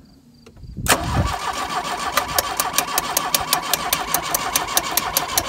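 Starter cranking a Dodge 2.2L four-cylinder engine, starting suddenly about a second in, with sharp ticks about four times a second. The cranking is pulsing fuel injectors to test whether they spray after years of sitting.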